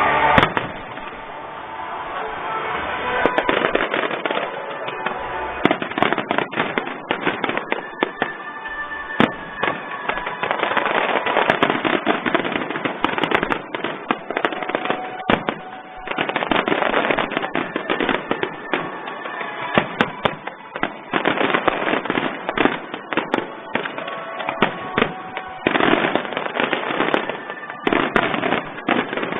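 Fireworks display: a sustained barrage of aerial shells bursting, with dense sharp bangs and crackle overlapping almost continuously. It thins briefly about a second in and again about halfway through.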